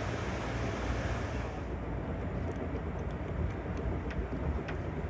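Amtrak California Zephyr passenger train running, heard from inside the car as a steady low rumble, with a few faint clicks in the second half.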